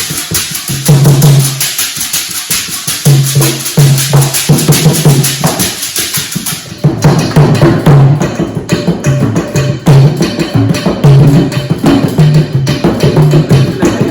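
Several hand drums played together in a dense, quick rhythm, with deep pitched drum tones under sharper slaps; about halfway through, a high shimmer drops out and the low drums come forward.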